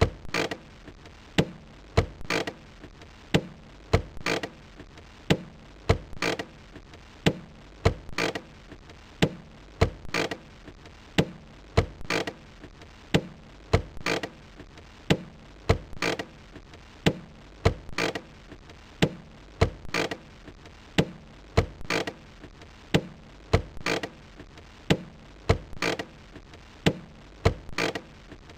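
Car hand brake lever being worked over and over, giving short bursts of sharp ratchet clicks that repeat in an even rhythm, roughly one or two bursts a second.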